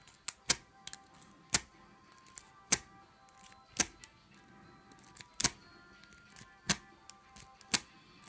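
Lock pick being zipped repeatedly through the keyway of a 50 mm Mitsutomo pin-tumbler padlock: sharp metallic clicks about once a second.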